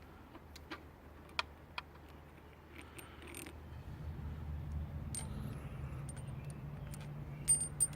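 Light metallic clicks and clinks of exhaust hardware and tools being handled while the stock exhaust is worked loose, a few sharp ringing ticks near the end. A low steady hum comes in about halfway through.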